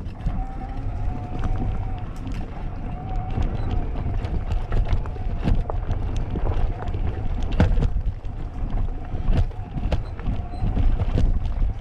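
Mountain bike riding down a dirt singletrack: a low rumble of tyres and wind on the microphone, broken by sharp rattles and knocks from the bike over bumps and roots, with a faint steady buzz running through much of it.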